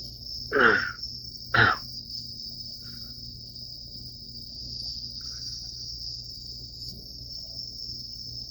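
Steady high-pitched chirring of insects over a low steady hum. A person's voice makes two short sounds, about half a second and a second and a half in.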